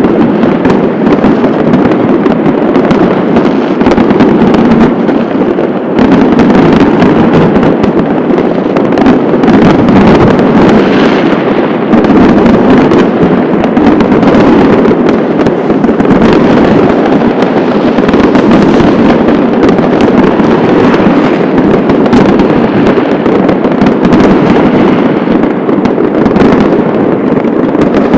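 Loud, dense barrage of fireworks and firecrackers going off all around, countless bangs and crackles overlapping without a break.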